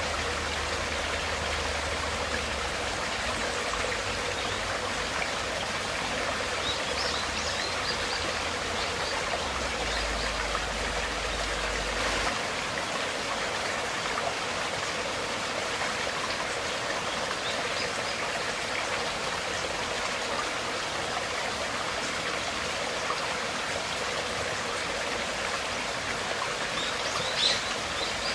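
Flowing water, a steady even rush with no pauses, with a few faint short high sounds over it and one slightly louder near the end.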